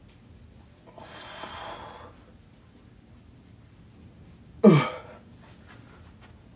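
A man exhaling hard for about a second, then a short, loud grunt that drops in pitch, the breathing of someone working out with a dumbbell.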